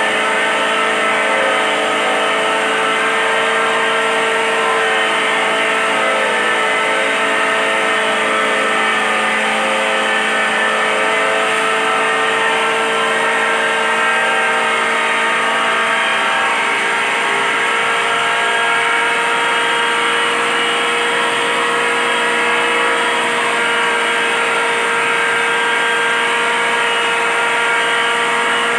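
Chilli grinding machine (a pulverizer with a cloth collection bag) running loudly and steadily while grinding red chillies into chilli powder, a constant mechanical whine made of several held tones.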